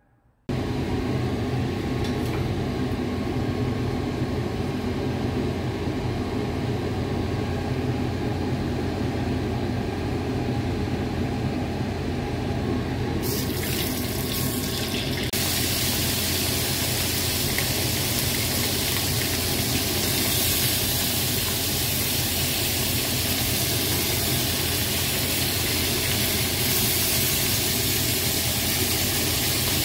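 Pieces of hairtail frying in hot oil in a wok: a steady sizzling hiss that grows stronger and brighter about 13 to 15 seconds in, as the fish pieces go into the oil, over a steady low hum.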